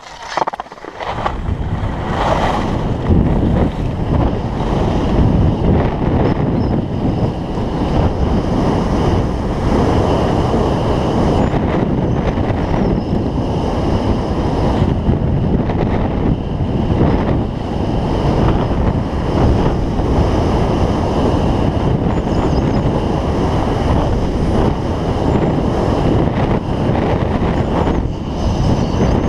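Wind rushing over the microphone, mixed with K2 Rictor skis scraping and carving over packed, groomed snow on a fast downhill run. The noise jumps up about a second in as the skier gets moving, then stays steady.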